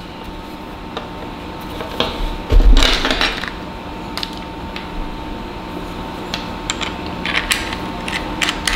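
Plastic clicks and knocks of a camera hand grip and its mount being handled and fitted, with a louder knock and rustle about two and a half seconds in and a run of small clicks near the end.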